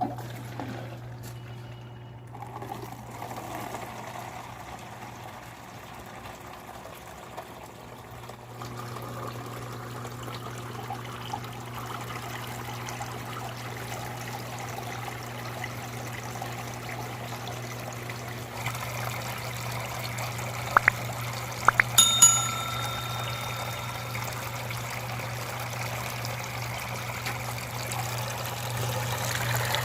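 Water trickling and splashing down a small home-made waterfall fountain, with a steady low hum throughout; the flow gets louder about two-thirds of the way through. A few sharp clicks and a brief metallic ring come just before that point.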